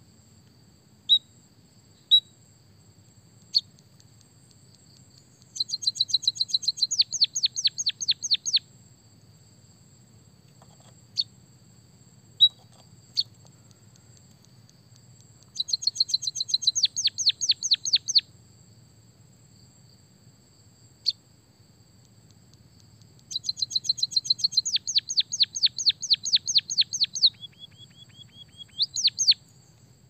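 White-headed munia singing: single sharp chips now and then, and three phrases of rapid downward-swept notes, about seven a second. The last phrase ends in a short steady whistle and a few rising notes.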